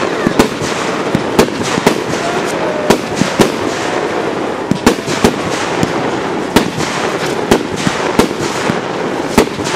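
Fireworks display: a steady hiss from spark fountains, with about a dozen sharp bangs from bursting shells, roughly one or two a second.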